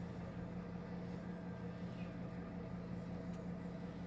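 Boat engine running steadily, a low even hum with no change in pitch.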